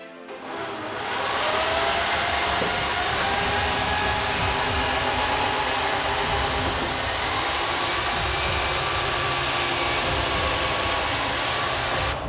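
Steady whirring, rushing noise like a motor-driven blower, with faint wavering tones through it. It fades in over the first second or so and cuts off abruptly near the end.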